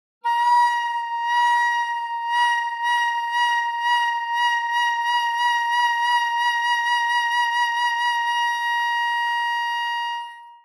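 Concert flute holding one long high note with vibrato that gradually speeds up. For the last second or so before the note stops, it is held straight without vibrato. This is a vibrato speed-control exercise.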